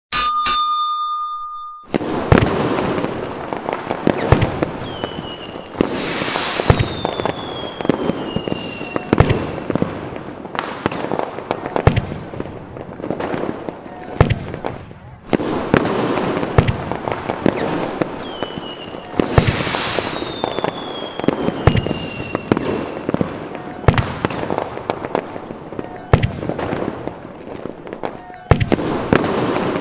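A short ringing chime lasting under two seconds, then a fireworks display: many sharp bangs and crackling bursts, with a long falling whistle twice.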